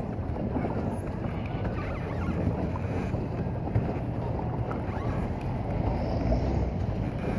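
Steady wind rumbling on the microphone, mixed with water sounds from a pedal boat moving across a lake.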